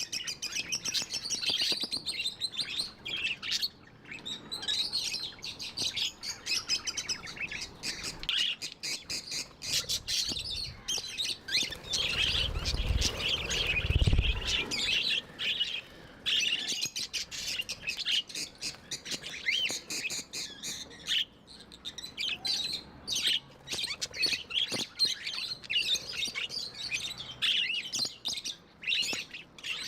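Budgerigars chattering and chirping without pause: many quick, overlapping warbles and tweets. A low rumble comes in about halfway through and lasts a couple of seconds.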